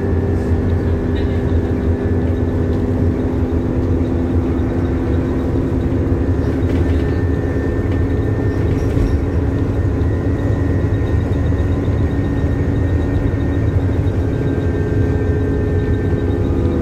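Diesel bus engine and drivetrain running under way: a steady low drone with several held tones that shift only slightly in pitch, and a faint higher whine above them.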